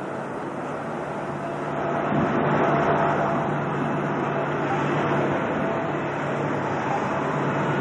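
Amphibious bridging vehicle's engine running under load as it drives through the water, with the rush of its bow wave and spray; the sound grows louder about two seconds in and then holds steady.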